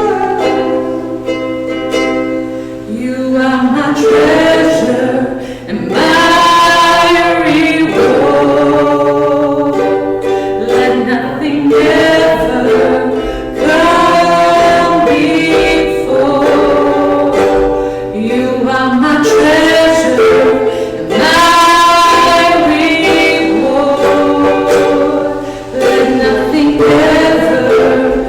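Worship song sung by several voices, with musical accompaniment.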